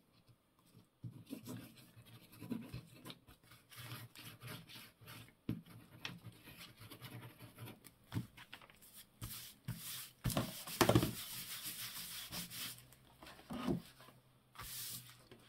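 Hands rubbing and pressing freshly glued paper flat onto a card file folder: paper rustling and scuffing with small taps, loudest in a stretch of rubbing about ten to twelve seconds in.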